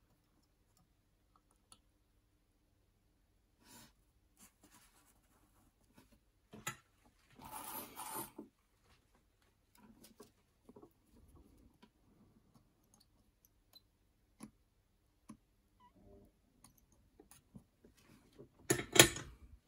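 Small handling sounds of wire and parts being worked on a guitar control plate: scattered light clicks and rustles, a short rustling burst about eight seconds in, and a louder brief noisy burst near the end.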